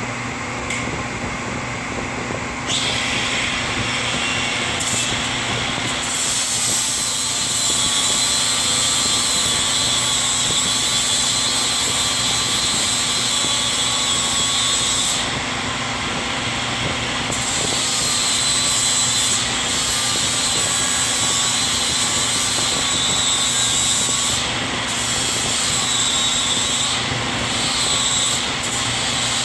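Milwaukee cordless 4-1/2 inch angle grinder running and grinding metal. A dense grinding hiss with a high whine comes in about three seconds in, and it eases off briefly a few times as the wheel lifts off the work.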